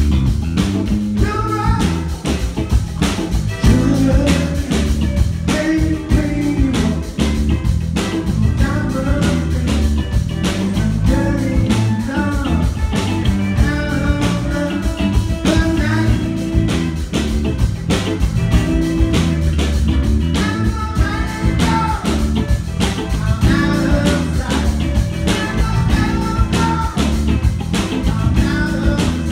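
Live rock band playing: electric guitars, bass guitar and drum kit, with a sung vocal line over them, heard loud in a small club.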